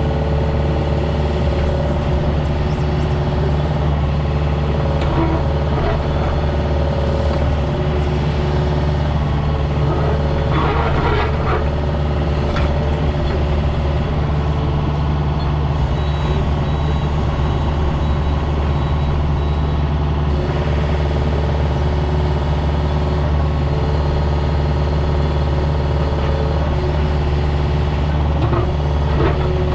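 Compact excavator's diesel engine running steadily at a constant speed, with a few brief clatters along the way, about five seconds in and again around ten to twelve seconds in.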